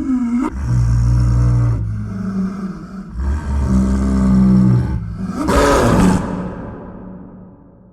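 A large wild animal giving a series of deep, drawn-out calls of about a second each, then a louder, harsher call about five and a half seconds in that fades away near the end.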